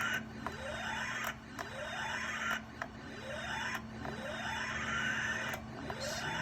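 Williams System 11 pinball sound board playing a repeated rising electronic sweep tone through its speaker, about one sweep every second or so, with sharp clicks in between and a steady low hum underneath.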